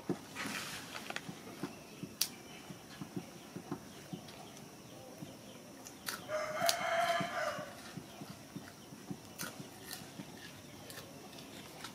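A single drawn-out animal call, a little over a second long, about halfway through, amid scattered sharp clicks and taps.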